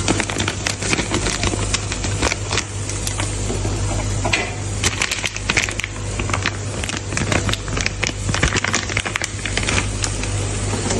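Dense, irregular crackling and clicking of cooking in a pan over a steady low hum.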